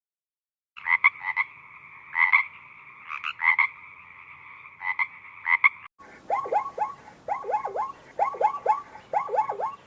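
Frogs calling: a steady trilling chorus with louder calls over it starts about a second in. About six seconds in it changes to quick groups of short calls that slide down in pitch.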